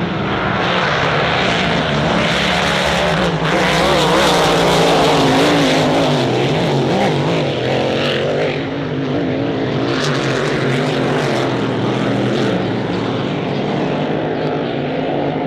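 Supercharged V8 racing hydroplane running flat out past the shore, its engine note wavering as it goes. It is loudest about four to five seconds in and eases off toward the end.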